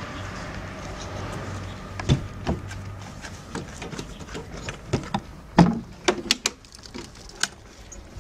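Irregular sharp knocks and clicks of wood and metal from a wooden chicken coop's hinged nest-box lid and its metal stay being handled and lifted open, the loudest knock about five and a half seconds in.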